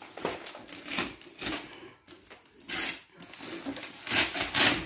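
Wrapping paper being torn and crinkled in irregular rustling bursts, the loudest a little over four seconds in.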